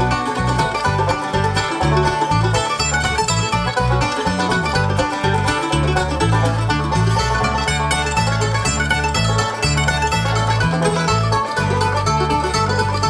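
Bluegrass band playing an instrumental passage: banjo, mandolin and acoustic guitar picking together over a bass guitar line that moves from note to note.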